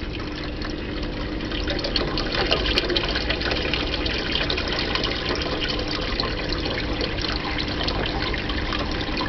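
Red Sea C-Skim 1200 protein skimmer and its pump running in a sump: a steady splashing, bubbling rush of water with a faint, even hum underneath.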